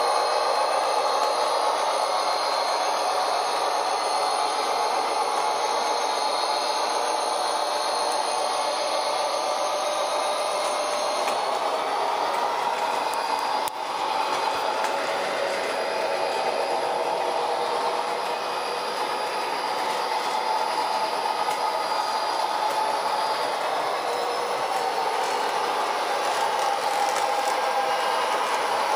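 Model diesel locomotive pulling flatcars around a layout's track: a steady mechanical whir of motor and wheels on the rails, with a brief break about halfway through.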